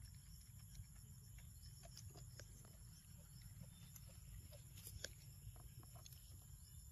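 Near silence: faint outdoor background with a steady high hiss and low rumble, and scattered small clicks and ticks.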